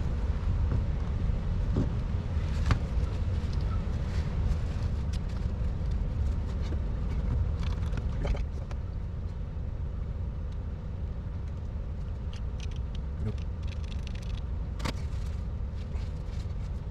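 Steady low rumble with scattered light clicks and taps of small parts being handled while an RC truck's rear gearbox is cleaned out.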